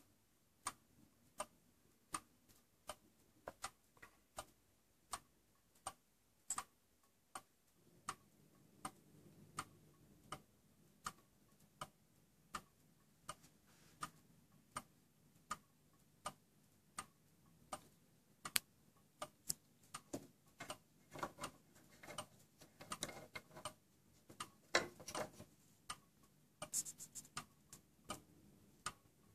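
Ticking of an antique weight-driven Vienna regulator wall clock's deadbeat escapement, steady and even at a little more than one tick a second, the clock running in working order. From about twenty seconds in, irregular softer clicks and rustles join the ticking.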